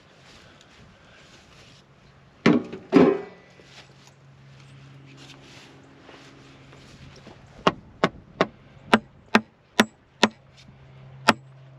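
Hammer blows on a wooden 2x4 brace: two heavy strikes about two and a half seconds in, then a quick run of about eight sharp, evenly spaced blows, two to three a second, as a nail is driven. A low steady hum runs underneath from about halfway through.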